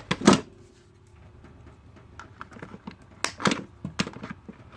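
Plastic retail packaging being handled and pulled open to free a pair of diagonal pliers. It gives a sharp click near the start, then scattered clicks and crackles that are busiest about three to four seconds in.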